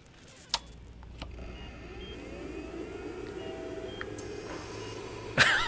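A hospital drama soundtrack: a low drone swells for a few seconds after a couple of small clicks. Near the end a medical equipment alarm breaks in loudly, beeping rapidly at about five beeps a second.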